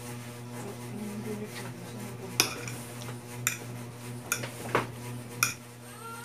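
Metal fork clinking against a plate while twirling noodles: about five sharp clinks in the second half, over a steady low hum.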